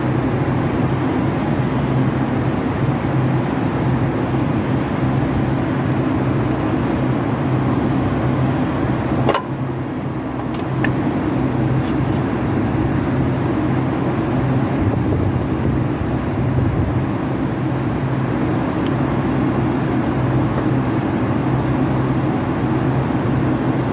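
A car engine running steadily at idle, with a few light metal clicks about nine to eleven seconds in.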